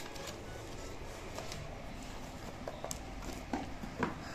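Paper cards and their packaging being handled: faint rustling with a few light taps and clicks, over low room tone.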